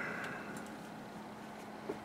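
Low steady hum of a running desktop computer. A faint hiss fades out right at the start, and there is a soft click near the end.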